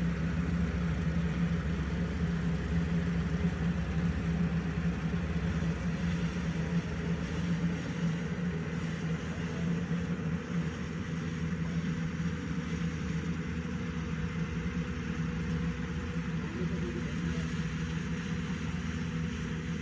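Kubota ER112 rice combine harvester running steadily, a constant engine drone with a mechanical hiss over it, a little quieter in the second half.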